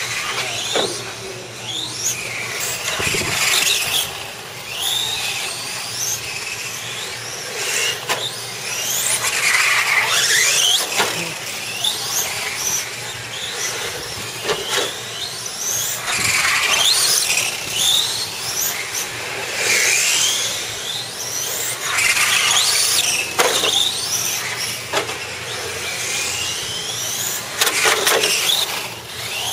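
Radio-controlled on-road cars running laps on a smooth concrete track: their motors whine up in pitch again and again as they accelerate out of the corners, with tyres squealing on the concrete.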